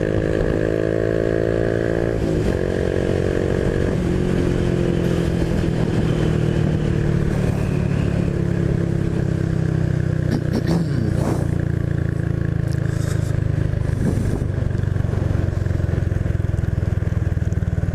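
Honda Biz 125's single-cylinder four-stroke engine running under way, its note falling with sudden drops about two and four seconds in, then running lower and steadier, over constant wind and road noise.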